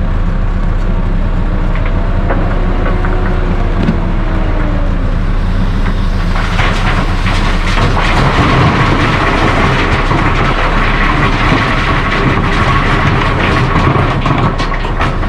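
Large rock being dumped into a steel dump-truck bed: a dense, loud clatter of rock knocking on steel begins about six seconds in, over the steady running of diesel engines. Before that, an engine's pitch rises and falls.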